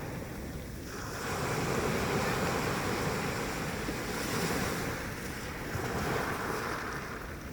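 Sea waves washing ashore, the surf swelling and ebbing, with a rush building about a second in and another near the end. Wind rumbles on the microphone underneath.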